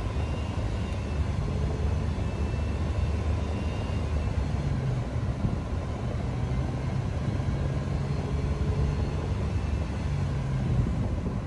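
A 2006 Nissan Maxima's 3.5-litre V6 (VQ35DE) held at a steady fast idle of about 2,500 to 3,000 rpm, heard from inside the cabin, its revs wavering slightly. The engine is being held up in revs to push trapped air out of the cooling system after a radiator swap.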